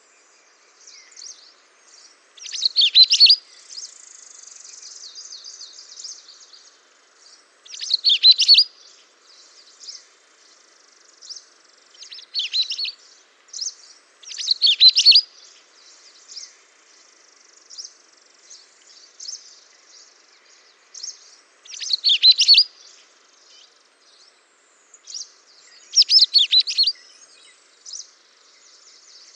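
Small songbirds chirping and twittering, with six short, louder bursts of song standing out among continual softer chirps.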